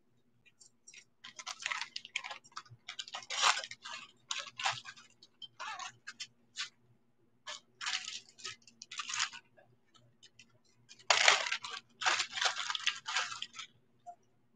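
Irregular bursts of rustling and clinking as a set of silver bangle bracelets is handled, with the loudest burst near the end.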